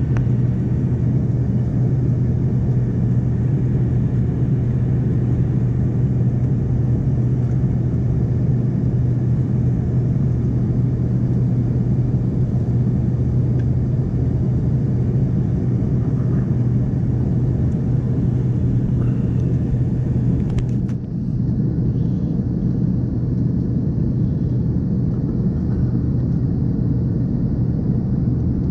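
Cabin noise of an Embraer 145 regional jet in the climb: a steady rumble from its rear-mounted Rolls-Royce AE3007 turbofans and the airflow, with a strong low hum. The level dips briefly about two-thirds of the way through, then the steady rumble resumes.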